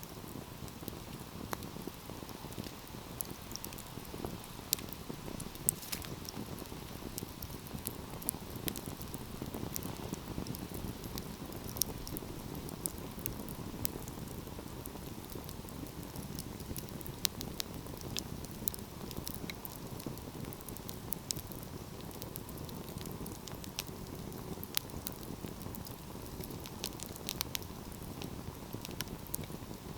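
Wood fire burning with a steady low rumble and frequent sharp crackles and pops at irregular intervals.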